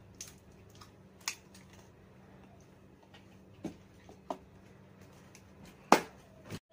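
Batteries being pressed into a plastic battery holder: a few scattered light clicks and taps, the loudest about six seconds in.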